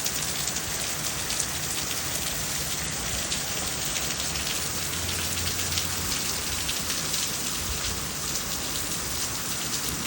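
Steady rain falling, with many fine ticks of individual drops hitting nearby surfaces.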